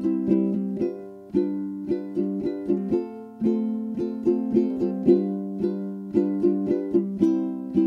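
Background music: a light instrumental tune of plucked string notes, several notes a second.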